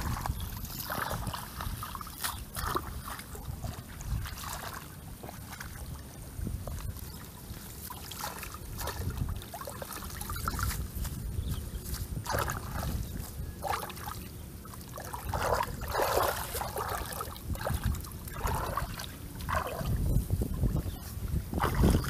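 Hands splashing and sloshing in shallow muddy water while grass and mud are scooped and packed down, in irregular bursts that are busiest in the second half. Wind rumbles on the microphone throughout.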